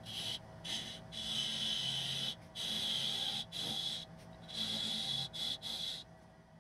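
Wood lathe spinning a small wooden spindle while a hand-held chisel cuts it: hissing, scraping cuts that stop and start several times as the tool is taken off and set back, over the lathe's steady hum. The cutting stops about six seconds in.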